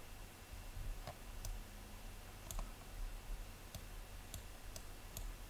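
Computer mouse clicking, about seven separate sharp clicks a second or so apart, over a faint low hum.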